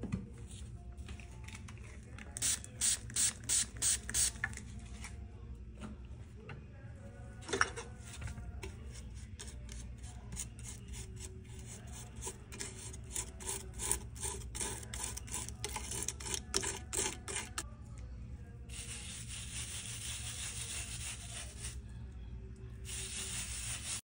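Metal palette knife scraping and tapping on a glass palette as powdered pigment is worked into acrylic medium, in quick repeated strokes, with longer rasping passes near the end.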